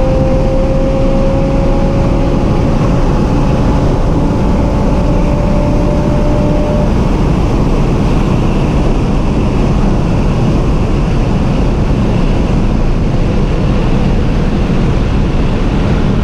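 Inside a car cruising at highway speed: a steady, loud roar of road and wind noise under the engine's drone. The engine note slowly rises in pitch for the first several seconds, then sinks into the road noise.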